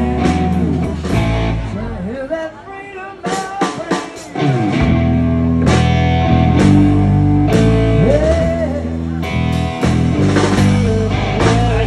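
Live blues-rock band playing: electric guitar bending lead lines over bass and drums. About two seconds in, the bass and drums drop out for a couple of seconds, leaving the guitar nearly alone, then the full band comes back in.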